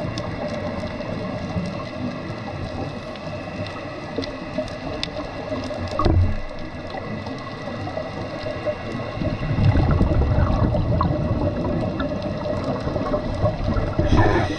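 Scuba diver breathing through a regulator underwater: a rumble of exhaled bubbles about two-thirds of the way through, and the hiss of an inhalation starting at the very end. Under it are a steady hum and scattered faint crackling.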